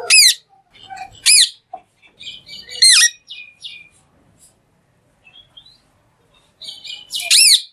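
Green parrot screeching: four loud, shrill calls, each a short note that rises and falls, with softer chattering between them.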